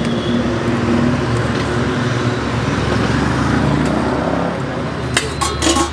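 Road traffic noise with a vehicle engine running close by, a steady low drone that shifts slightly in pitch partway through. A few sharp metal clinks near the end come from a steel serving spoon on steel pots.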